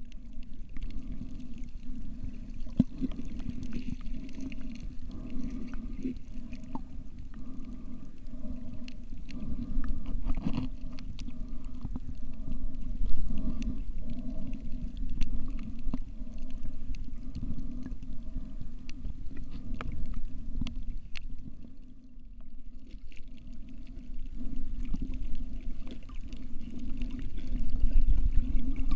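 Underwater sound picked up by a submerged camera: a steady, muffled low rumble of moving water with many faint scattered clicks, dipping briefly about three quarters of the way through.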